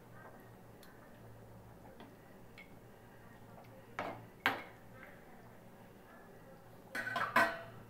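A metal ladle knocking against a large aluminium cooking pot while stirring curry: a few faint clicks, two sharp knocks about four seconds in, then a quick cluster of knocks near the end.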